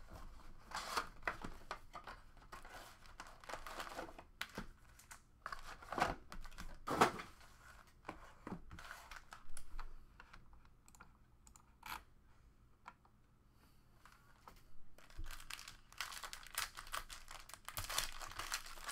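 Trading-card rack pack box being torn open by hand and its plastic-wrapped packs handled, in irregular rips, crinkles and clicks, with a quieter stretch about two-thirds of the way through.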